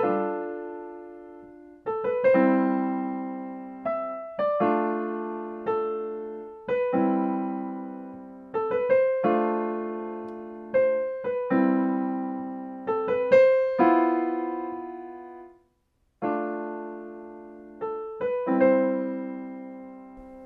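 Slow, gentle solo piano music: single notes and soft chords struck every second or two, each left to ring and fade, with a brief silence about three-quarters of the way through.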